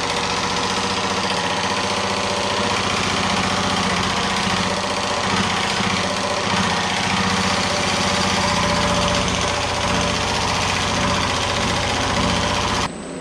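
Pullmax reciprocating sheet-metal machine running, its dies hammering rapidly over a tack-welded bead on a sheet-metal cowl patch piece to planish out the tack welds. Steady rapid pounding over a motor hum, cutting off abruptly near the end.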